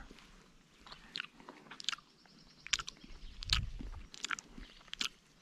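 A person chewing wild blueberries close to the microphone: irregular small clicks and crunches.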